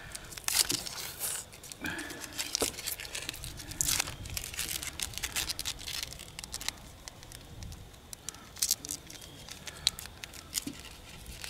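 Dry papery skin being peeled off a white onion by hand: irregular crinkling and tearing crackles.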